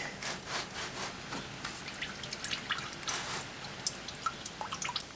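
Engine oil dripping into a drain pan from the just-removed oil filter's mount: irregular drips with small clicks.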